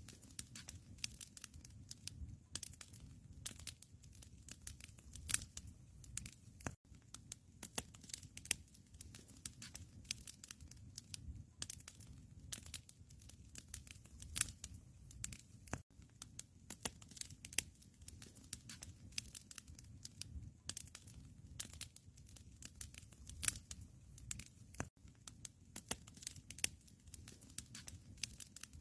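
Wood fire crackling in a fireplace: dense, irregular pops and snaps over a low, steady rumble of flame.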